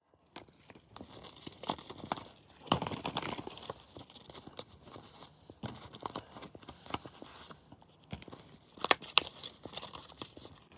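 Wrigley's 5 gum pack being torn open and foil-wrapped gum sticks crinkling and rustling as they are handled, a run of small rustles and clicks with louder tearing about three seconds in and again near nine seconds.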